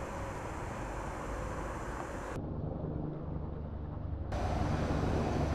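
Outdoor background noise with a steady low mechanical hum, like a distant engine. The background changes abruptly about two seconds in.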